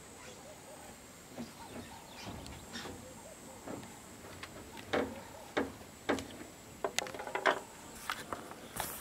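Evening bush ambience at a waterhole: a faint, steady, high insect-like whine under scattered short clicks and chirps, which come sharper and more often in the second half.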